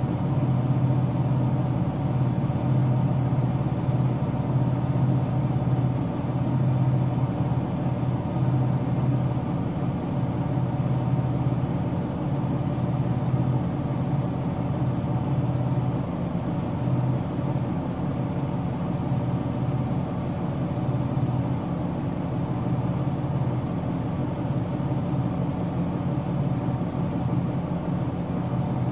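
Car interior ambience: a steady low engine hum and road drone heard from inside the cabin, with a slight drop in level about halfway through.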